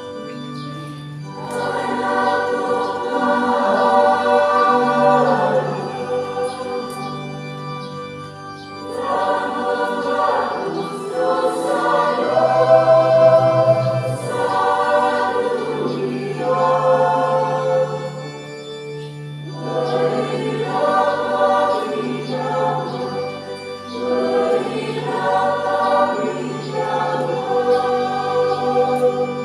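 Church choir singing a hymn in several parts, in phrases with short breaths between them, over steady held low organ notes.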